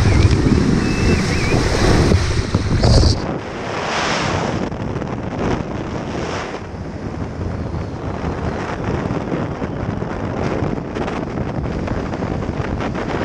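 For about the first three seconds, a loud rushing of water and a body sliding over a wet plastic slide, cut off abruptly. Then steady wind buffeting the camera microphone as the parachute canopy flies in.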